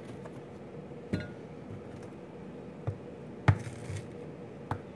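Kitchen knife and pumpkin pieces knocking on a plastic cutting board while a pumpkin is cut into cubes: about four separate sharp knocks, the loudest a little past the middle, over a faint steady hum.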